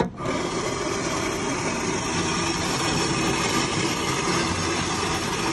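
A click as the French Vanilla button is pressed on a self-serve coffee machine. The machine then runs with a loud, steady whirring as it mixes and dispenses French vanilla coffee into a paper cup.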